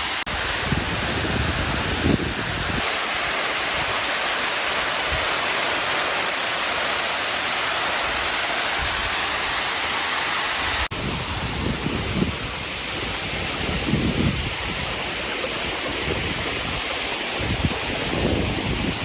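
Mountain waterfall rushing in a steady, full roar of falling water. About halfway through, the sound changes abruptly to a slightly duller tone.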